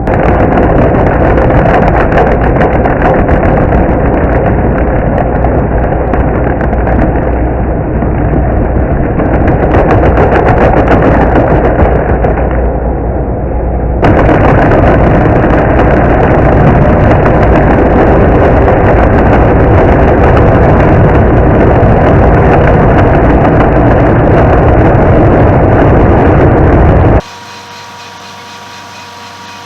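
Remote-control stump grinder's engine running hard, loud and rough with a dense crackle through it. Near the end it drops suddenly to a much quieter steady hum.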